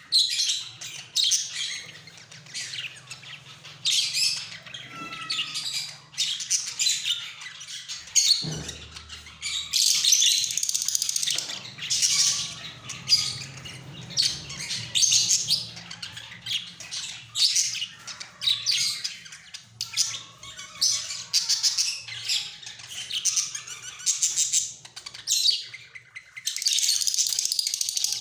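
Budgerigars chattering in quick high chirps and squawks, running almost unbroken near the end, with a single knock about eight seconds in.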